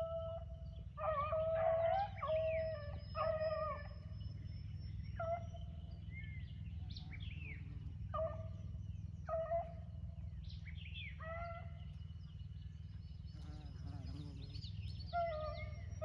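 Rabbit hounds baying as they run a rabbit's trail: long held calls on one note, several voices overlapping, coming again every second or two. A low steady rumble runs under them.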